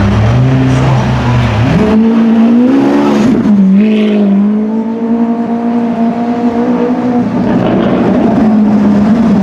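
Supercar engine accelerating: its note climbs sharply about two seconds in, dips briefly, then holds a steady pitch under load.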